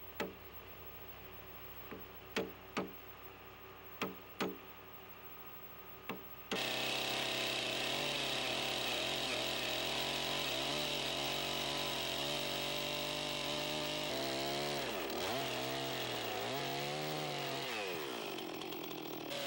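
A chisel is knocked into a squared timber with several sharp taps, scoring a plumb line. About six and a half seconds in, a gas chainsaw cuts into the timber, running loud and steady, then its engine speed dips and rises repeatedly near the end as it works the tenon cut.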